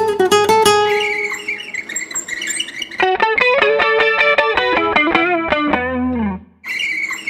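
Guitar playing single notes: a held note, then a fast run of notes from about three seconds in that ends in a note bent downward. After a brief stop, the guitar starts again near the end.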